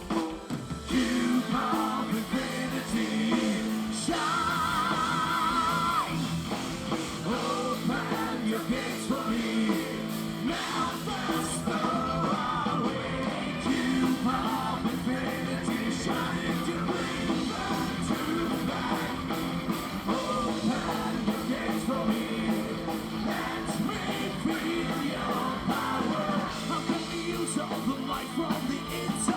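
Live heavy metal band playing loudly, with electric guitars and drums, and a held, wavering lead note about four seconds in.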